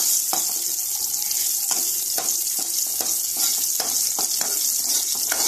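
Shallots, garlic, curry leaves and mustard seeds sizzling in hot oil in a metal kadai. A steel spoon stirs and scrapes against the pan in short strokes. It is the sauté stage of a sambar tempering, with the onions frying until brown.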